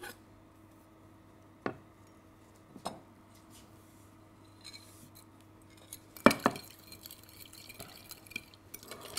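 Metal spoon clinking against a glass bowl while a vinaigrette is stirred: two single clinks early, a louder cluster of clinks about six seconds in, then light scattered tapping.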